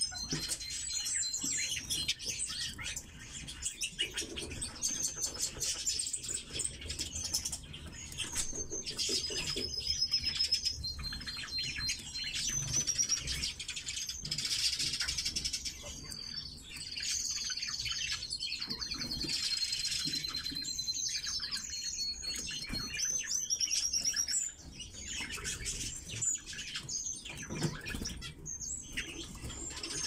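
Red-billed leiothrix (Pekin robin) calling: many short high chirps and quick trilled call series, over scattered clicks and rustling.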